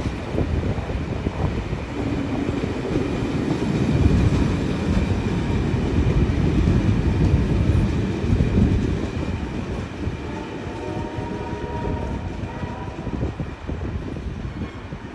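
Passenger carriages of a heritage train rolling past on steel rails, the wheels clattering over the track. The rumble is loudest in the middle and fades over the last few seconds as the last red carriage moves away.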